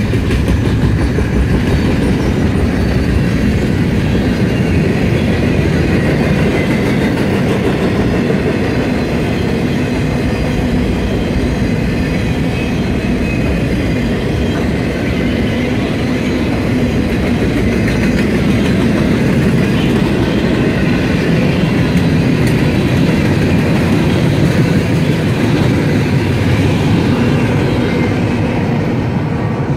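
Freight train cars rolling past at speed: a steady, loud rumble and clatter of steel wheels on the rails, from double-stack container well cars and then covered hoppers.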